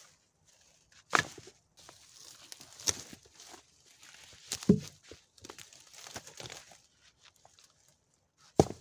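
Boots crunching on dry pine needles and leaf litter as heavy stones are carried and set down, with four sharp knocks of rock on rock and ground; the loudest, a deeper thud, comes about halfway through, and another loud knock near the end.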